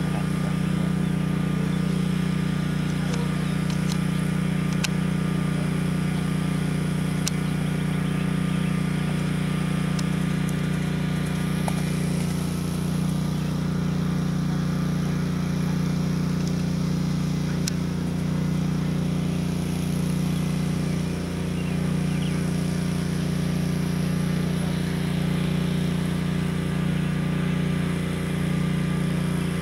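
An engine running steadily at an unchanging speed, a constant low hum that holds throughout.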